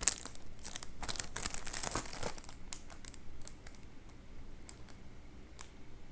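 Plastic Oreo pack wrappers crinkling under gloved hands as the packs are handled and one is picked up. There is a dense run of crackles in the first couple of seconds, then only scattered crinkles.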